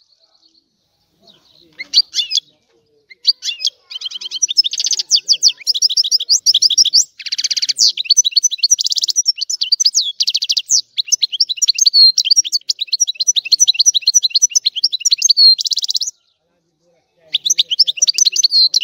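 European goldfinch singing: a few short notes, then a long run of fast, high twittering with several harsh buzzy notes mixed in. The song breaks off about 16 seconds in and starts again near the end.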